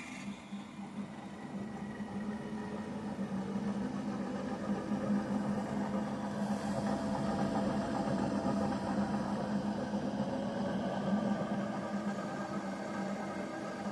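Dito Sama BM20S planetary mixer running: a steady motor and gear hum that grows a little louder over the first few seconds, then holds even.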